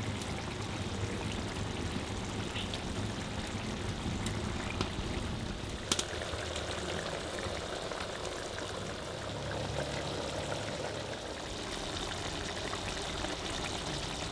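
Steady watery hiss of food cooking on the stove, with one short sharp click about six seconds in.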